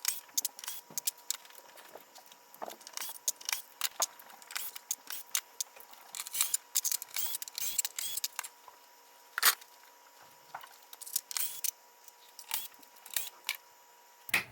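Small metal hardware, screws and washers, clicking and rattling in irregular short ticks and taps as it is handled and fitted to holes in a pinball playfield.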